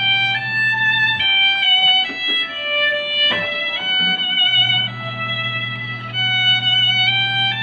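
A violin playing a melody, one clear note after another, over a steady low hum that stops for a few seconds from about a second in.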